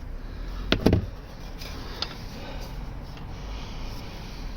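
Two sharp knocks about a second in, then faint rubbing and scraping as a stuck oil filter is worked at by hand, without coming loose.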